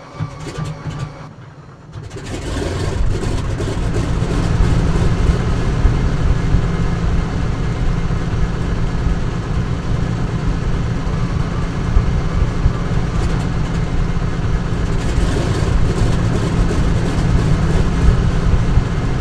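Aircraft engine starting up: a few faint clicks, then it catches about two seconds in and runs with a loud, steady low rumble.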